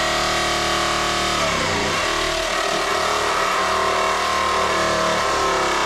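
Motor of an electric power tool running steadily, its pitch dipping briefly about a second and a half in, as if under load.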